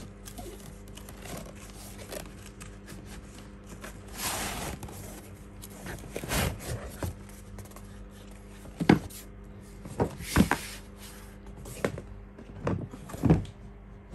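Hands handling a black plastic DeWalt tool case and its cardboard box: a rubbing swish about four seconds in, then several sharp knocks and taps of hard plastic, over a faint steady hum.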